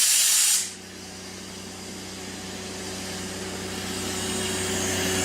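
Carbon arc gouging, a loud hiss of the air blast and arc, cuts off about half a second in, leaving the Kubota diesel generator's engine running with a steady hum.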